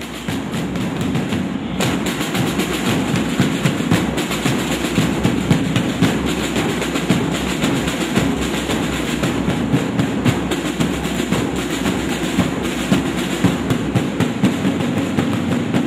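Marching band drums played in the street, a steady rhythm of many drum strokes that runs without a break.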